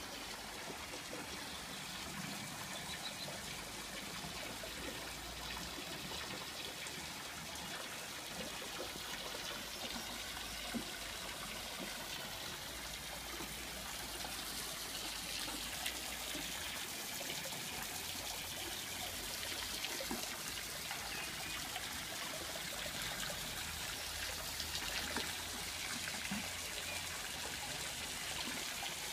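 Water trickling and splashing from a garden pond's water feature, a steady running sound that grows slightly louder towards the end.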